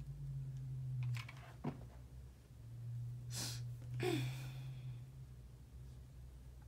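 Soft rustling of satin ribbon being handled and pressed into place during hot-glue crafting, with a few short breaths, over a low hum that fades in and out.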